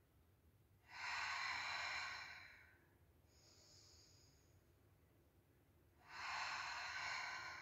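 A woman breathing hard through a Pilates exercise: two long, strong exhalations, about a second in and again about six seconds in, with a softer, higher inhalation between them. The breaths are paced to her arm lifts and lowering in a held lunge.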